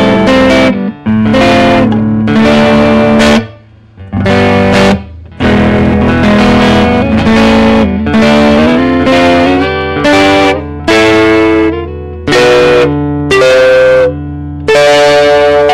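Electric guitar strummed through an amplifier's clean channel with no effects, played on the neck pickup, a Guitar Fetish Neovin vintage hard rock noiseless Telecaster pickup. It plays a series of chords, each ringing briefly and then cut short before the next.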